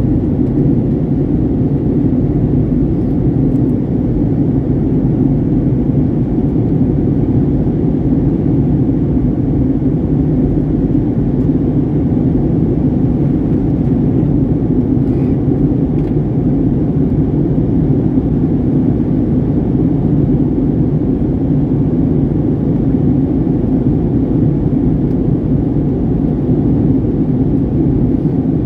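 Steady, loud cabin rumble of a jet airliner in flight: engine and airflow noise heard from inside the passenger cabin, even and unbroken throughout.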